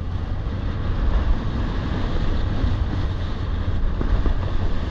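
Wind buffeting the microphone of a ski helmet camera during a fast run down groomed snow: a loud, steady low rumble, with the hiss of skis sliding over the snow beneath it.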